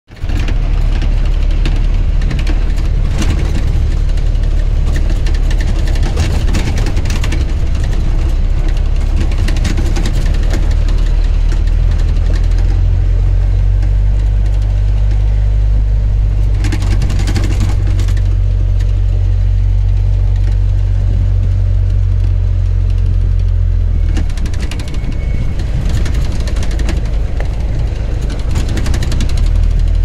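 A vehicle driving along a winding road, heard from inside it: a steady low engine and road drone with wind rushing past, which swells several times.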